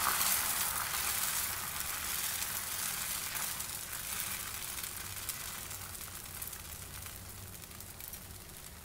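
Fresh dosa batter sizzling on a hot dosa pan as it is spread thin with a ladle, the sizzle slowly fading as the batter sets.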